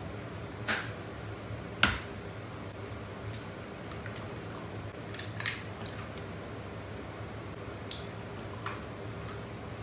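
Eggs being cracked on the rim of a bowl and dropped in: scattered sharp cracks and taps, the loudest about two seconds in and a cluster around five seconds in, over a low steady hum.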